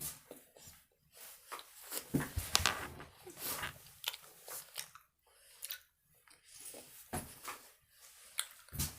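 Someone chewing candy with their mouth open: irregular clicks and smacks with short pauses between them.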